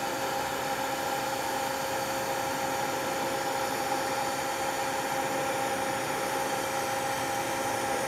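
TIG welding thin-wall titanium tubing with the pulser off: the arc and welding setup give an even hiss with a constant hum.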